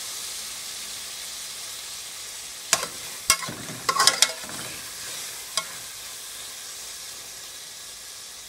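Chopped bell peppers, tomatoes and onions sizzling in oil in a metal pot. A metal spoon stirs them, scraping and clinking against the pot several times around three to four seconds in and once more a little later.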